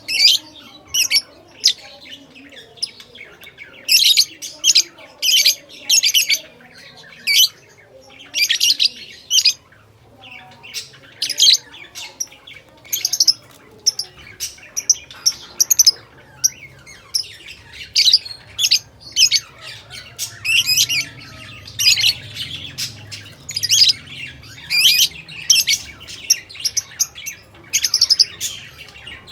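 Lovebirds chirping and squawking: short, shrill, high calls repeated in quick clusters, with brief pauses between them.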